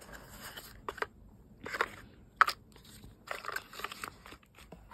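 Plastic packaging crinkling and crackling in short bursts as it is peeled and handled, with one sharp click about two and a half seconds in.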